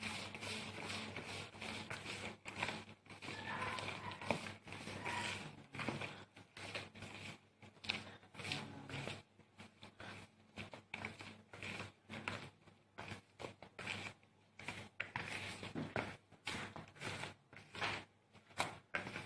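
A gloved hand mixing a wet batter of grated tapioca, grated coconut, sugar and eggs in a plastic bowl by hand: quick, irregular rubbing and scraping strokes against the bowl, a few each second.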